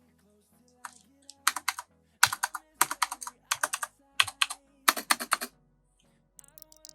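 Typing on a Razer keyboard fitted with PBT keycaps: quick runs of keystroke clicks in several bursts with short pauses, stopping about five and a half seconds in. Faint background music underneath.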